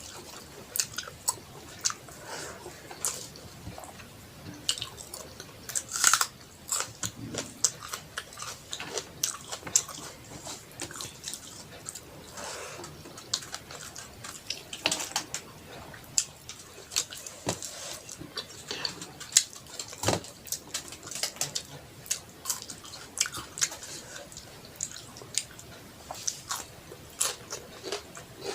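Close-up eating sounds: wet chewing and smacking of rice and curry, with many short sharp clicks and smacks through the whole stretch.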